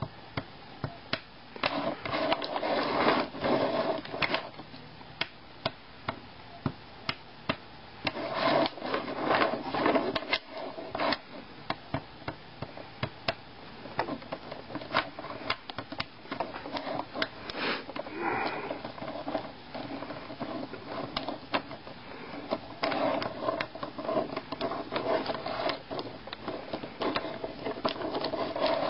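Wooden cubes of a snake cube puzzle clicking and knocking against each other and the desk as the elastic-strung chain is twisted and folded into a cube. There are many separate clicks, with three busier stretches of rapid handling.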